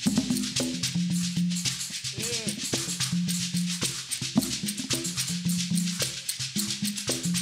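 Live acoustic ensemble music of hand percussion, bala (balafon), oud and mbira: a quick, steady rattle of shaker-like percussion over short, repeating low pitched notes.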